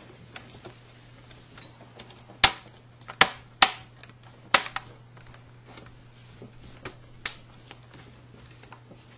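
Plastic tabs of a laptop screen's trim bezel snapping into place under finger pressure: a series of sharp clicks, five loud ones spread over a few seconds with fainter taps between.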